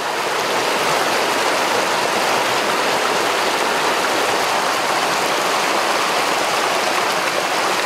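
Heavy rain pouring onto rocks and a rushing stream: a steady, even hiss of water that starts abruptly.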